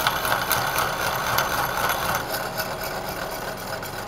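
Hole saw in a milling machine cutting a miter into a chromoly steel bicycle frame tube: a harsh, grating metal-cutting noise over the steady hum of the spindle motor. The cutting is harshest for about the first two seconds, then eases off.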